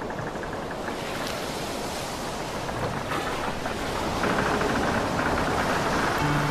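Water rushing and spraying along the side of a fast-moving inflatable boat, with wind on the microphone; the rush grows louder. Music comes in just before the end.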